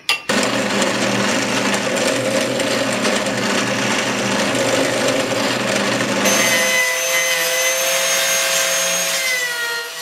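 Power tools machining a wooden viola plate: a steady, noisy machine run for about six seconds, then a drill press with a high whine whose pitch sags slightly near the end.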